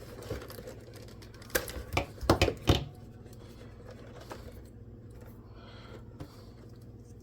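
A quick run of sharp clicks and snaps from hand tools and small parts being handled, about five of them within a second or so, with a few fainter clicks before and after.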